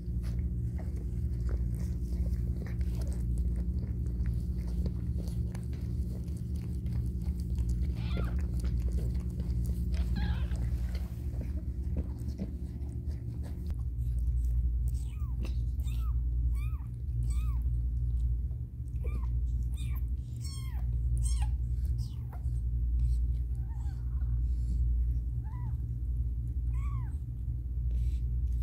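Newborn kitten mewing: many short, high, thin cries, repeated over and over through the second half, over a steady low hum.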